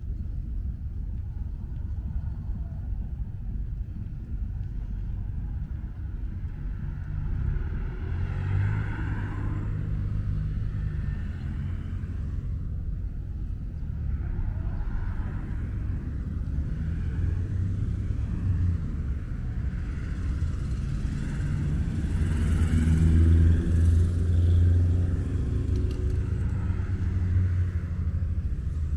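Road traffic on the street alongside: cars passing, their engines and tyres swelling and fading twice, loudest near the end, over a steady low rumble.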